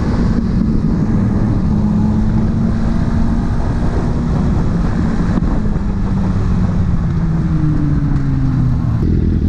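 Yamaha YZF-R125's 125 cc single-cylinder four-stroke engine running at a steady cruise, its note falling slowly over the last few seconds as the bike eases off. Wind rumble on the microphone runs underneath.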